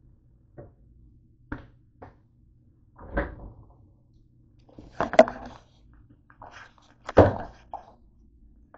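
Kitchen handling clatter: a plastic spoon tapping and set down in a nonstick pot, then two louder thunks about five and seven seconds in.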